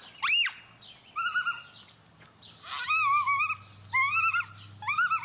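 A child's high-pitched squealing cries, five in a row, each rising then falling in pitch, the middle one longer and wavering.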